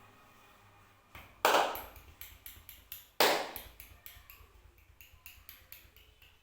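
Head-and-neck massage: two loud sharp smacks about two seconds apart, each trailing off quickly, then a run of light, rapid clicks and crackles.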